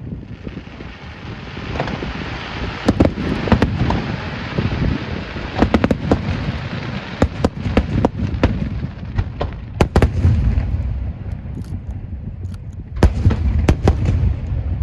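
Fireworks going off: many sharp bangs and booms over a continuous crackle, with heavy low rumbling bursts about ten seconds in and again near the end.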